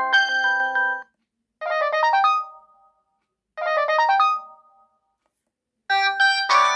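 Samsung GT-E2370 mobile phone playing its built-in ringtones. One melody ends about a second in, a short bright melodic phrase plays twice with silent gaps between, and another ringtone begins near the end.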